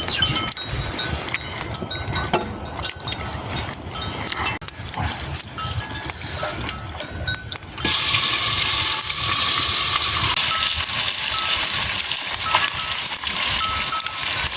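Small livestock bells clinking, with scattered clicks and knocks. About halfway through, a loud, steady frying sizzle starts suddenly as food goes into hot oil, and it keeps going with the bells still faintly heard.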